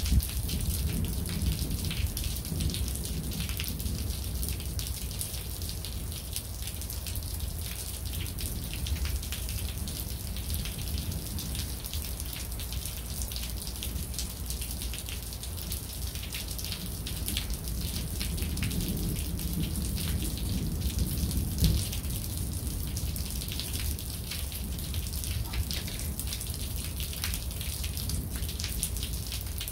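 Steady rain falling, with many separate drop hits close by and a steady low rumble underneath.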